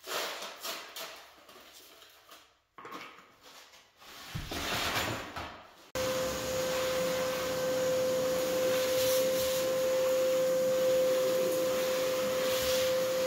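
A hand brush sweeping broken tile and thinset chips into a dustpan, with scratchy scrapes. About halfway through, a vacuum cuts in suddenly and runs steadily with a high, steady whine, which is the loudest sound.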